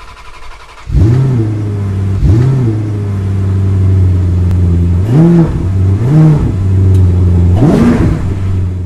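Car engine idling with five short throttle blips, each rev rising and falling in pitch. It comes in suddenly about a second in and starts to fade near the end.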